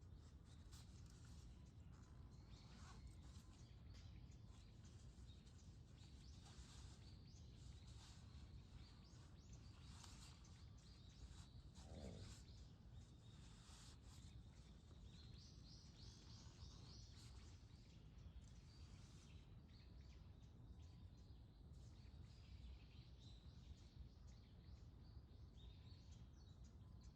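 Faint dawn ambience: small birds giving scattered short chirps and calls over a steady low background rumble, with one falling glide about twelve seconds in.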